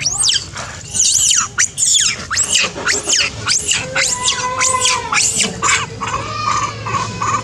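Long-tailed macaques squealing: a rapid run of shrill calls, each sweeping sharply up and down in pitch, about two or three a second, with a few held, lower-pitched calls in the second half.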